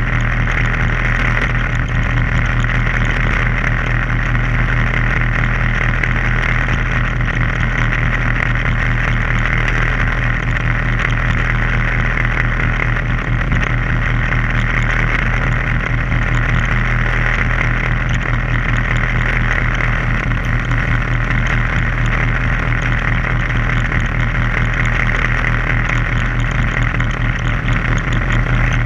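Boat engine running steadily at constant speed: an unchanging low hum with a steady hiss over it.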